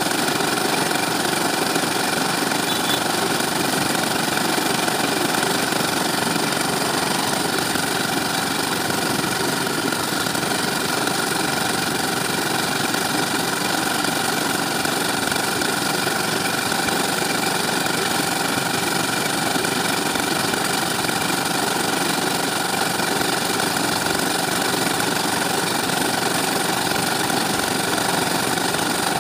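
Small engine of a belt-driven concrete mixer running steadily at an even speed.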